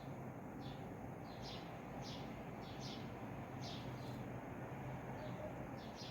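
Bird chirping: about ten short, high chirps at an uneven pace, roughly two a second, over a steady low hum.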